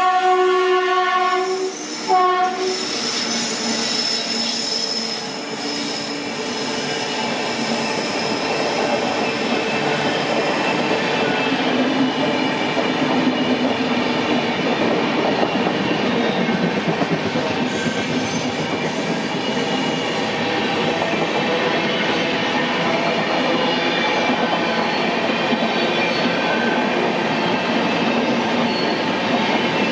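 WAP-7 electric locomotive's horn sounding at the start and cutting off about two seconds in, followed by a short second blast. The passing express's coaches then roll past with steady wheel-and-rail noise, and a thin, high wheel squeal runs for several seconds after the middle.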